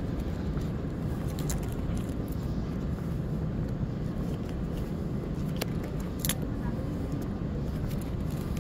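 Steady low rumble and hiss of ambient noise in a large, empty airport concourse, with a few short sharp clicks, one about a second and a half in and two more around six seconds in.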